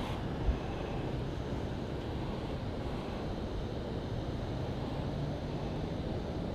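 Steady low rumble of distant city traffic, with a faint low hum that swells briefly about four to five seconds in and a single soft knock about half a second in.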